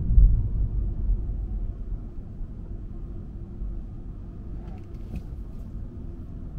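Low rumble of a car driving on the road, loudest at the start and easing over the first two seconds, then steady. A few faint ticks come about five seconds in.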